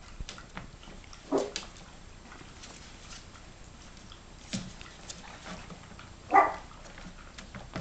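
Month-old Yorkshire terrier puppies play-fighting, giving two short yaps, about a second and a half in and a louder one near the end, among faint scattered clicks and scuffles.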